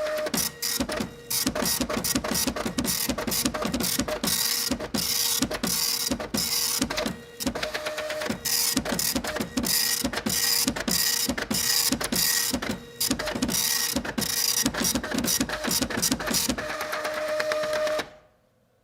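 Printer running through a print job: a dense, rapid mechanical clatter with a faint steady whine underneath. It stops abruptly near the end and fades out.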